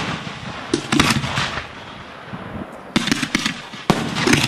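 Fireworks display: aerial shells bursting in quick volleys of sharp bangs with crackle, three clusters of them, about a second in, about three seconds in and near the end.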